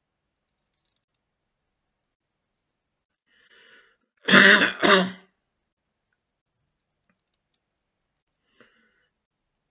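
A man clearing his throat with two short, loud coughs in quick succession about four seconds in.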